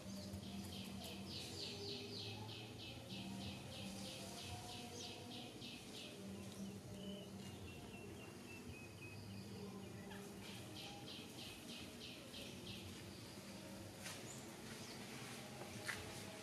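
Outdoor ambience with a rapid series of short high chirps, about four a second, in two bouts: one lasting about six seconds from the start, and another starting about ten seconds in.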